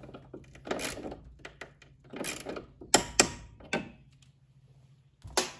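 Ratcheting torque wrench tightening the nuts on battery cable lugs: several short runs of ratchet clicks, with one sharp, loud click about three seconds in.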